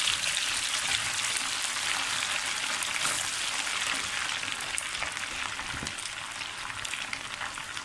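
Hot oil in a wok sizzling and crackling hard as a batch of dried anchovies (ikan bilis) deep-fries. The sizzle slowly fades.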